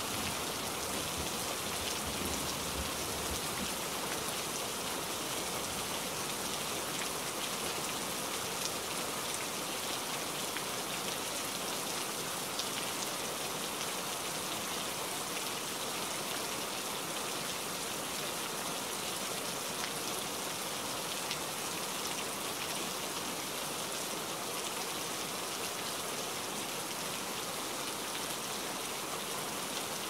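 Steady rain falling on leafy trees, an even hiss of drops on wet leaves. A low thunder rumble dies away in the first few seconds.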